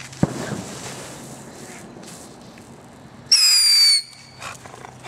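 A small ground firework on pavement gives a sharp pop, then fizzes with a hiss that fades over a few seconds. About three seconds in, a loud, shrill, slightly falling whistle cuts in for under a second and stops abruptly.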